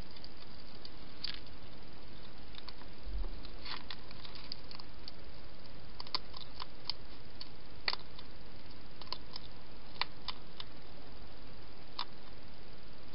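Wild hedgehog eating from a bowl: irregular sharp crunching clicks, a few each second at times, over a steady hiss.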